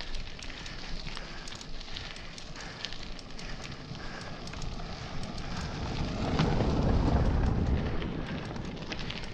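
Crackling crunch of tyres rolling over gravel, with wind buffeting the microphone; a louder gust of low rumble swells about six seconds in and fades.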